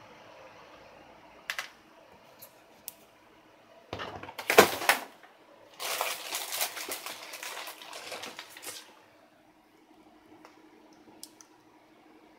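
Sharp clicks, then a loud clatter about four and a half seconds in and a few seconds of dense rustling and scraping handling noise, over a faint steady hum.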